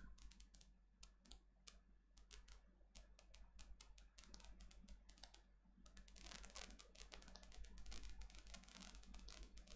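Near silence: room tone with a low steady hum and faint rapid clicking, which grows denser in the second half.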